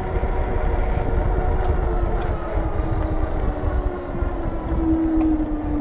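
Electric fat-tire e-bike climbing a hill under motor power: a steady whine from the rear hub motor under load, slowly dropping in pitch and getting louder near the end as the bike slows, over wind and tyre rumble on the microphone.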